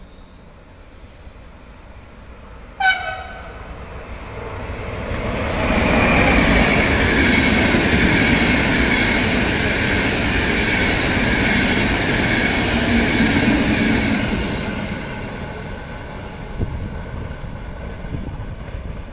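ÖBB passenger train sounding one short horn blast about three seconds in, then running through the station: the rumble and rail noise of the passing coaches swell, hold for several seconds, and fade as the train moves away.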